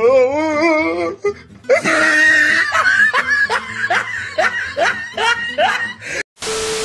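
Laughter: a run of quick, rising 'ha' sounds repeating about every half second, with music behind it. Near the end comes a short burst of hiss.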